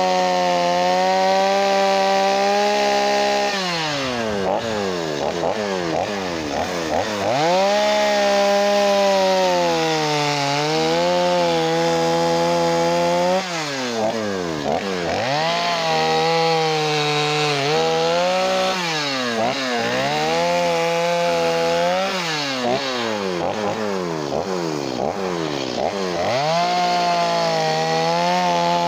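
Two-stroke chainsaw carving wood: held at full throttle for a few seconds at a time, with the revs dropping and climbing back again and again as the trigger is eased off and squeezed.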